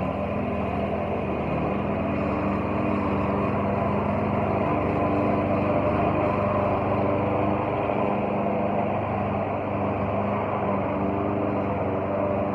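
Gas walk-behind lawn mower running steadily as it is pushed across the grass, a little louder in the middle stretch.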